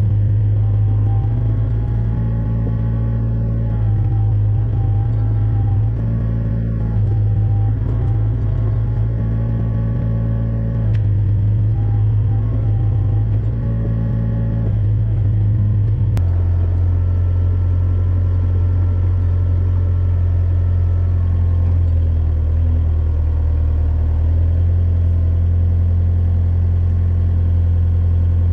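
Yanmar excavator's diesel engine running, its note repeatedly rising and easing as the hydraulics load up to swing and lift the arm. About 16 seconds in, the note drops a little and settles into a steady run.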